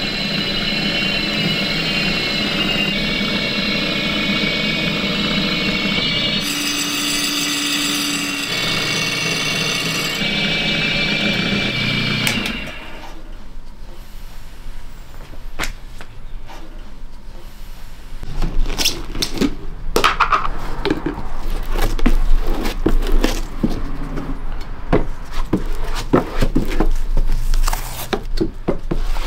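NIPPY leather skiving machine running with a steady whine and hum for roughly the first twelve seconds. After that, irregular scraping and rubbing strokes of a hand tool worked across a sheet of leather, growing louder toward the end.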